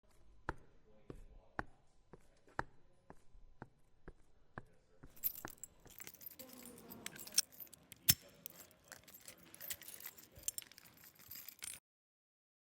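Foley effects made with everyday objects. First comes a steady run of sharp clicks, about two a second. From about five seconds in, a dense, bright jangling rattle takes over, with one loud knock partway through. It all stops abruptly about a second before the end.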